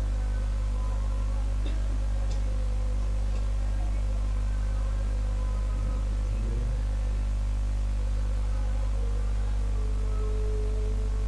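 Steady low electrical hum with no speech, and a few faint short clicks in the first few seconds.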